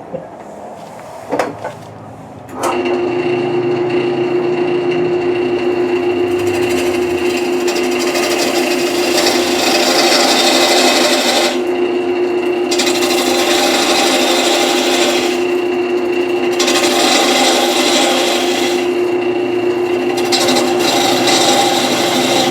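Wood lathe switching on about two and a half seconds in and running with a steady hum, while a turning tool scrapes and cuts the spinning wood, the cutting pausing briefly three times.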